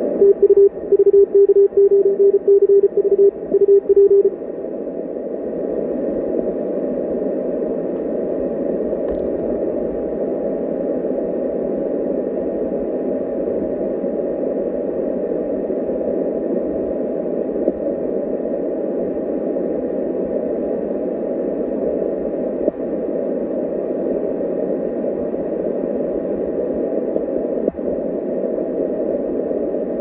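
Morse code (CW) on an Icom IC-7610 transceiver: a single steady beep keyed on and off for about four seconds, then steady receiver hiss.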